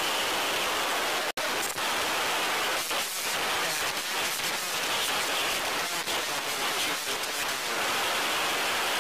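Steady, even rushing hiss with no engine or propeller tones, cutting out for an instant about a second and a half in.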